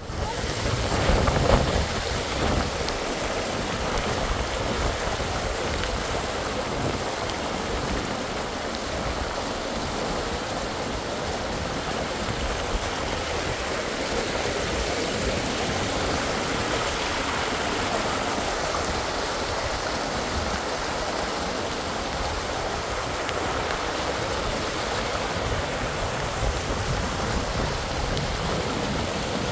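Heavy rain falling steadily, a dense even hiss, louder for the first couple of seconds.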